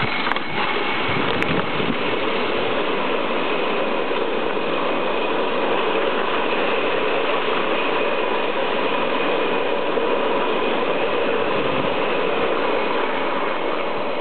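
Rollers of a long playground roller slide spinning under a sliding rider, a steady continuous rattle with a faint hum in it.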